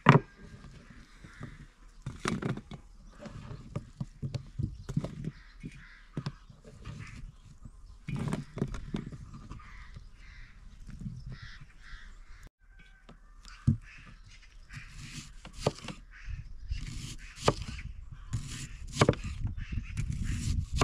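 A knife cutting through raw potatoes, with short sharp knocks and clicks as the blade meets the wooden board and pieces drop onto a metal tray. Birds call now and then in the background.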